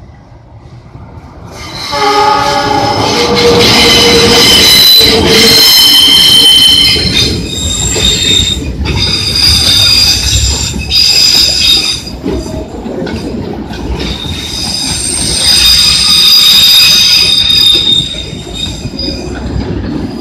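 Freight train double-headed by two Indonesian diesel-electric locomotives, CC 206 and CC 203, passing close by at speed. The noise jumps up about two seconds in as the train reaches the spot, then stays loud with a heavy rumble and steel wheels squealing in high ringing tones.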